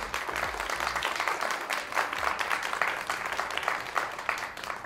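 Applause: a dense clatter of many hand claps that fades away near the end.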